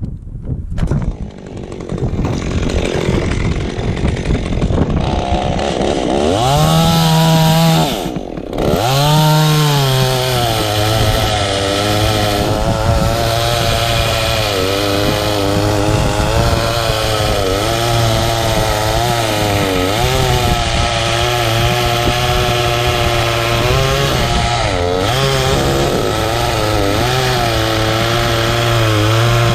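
Chainsaw revving up about six seconds in after some wind noise, easing off for a moment, then cutting steadily under load, its engine pitch pulled down and wavering as it works through the wood.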